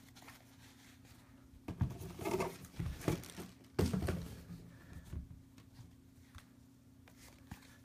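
Adidas Ultraboost sneakers handled and set down on a glass tabletop: a few soft knocks and rubbing sounds between about two and five seconds in, over a faint steady hum.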